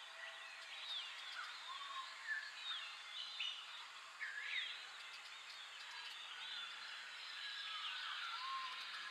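Several small birds chirping and whistling together, short overlapping rising and falling notes, over a steady background hiss.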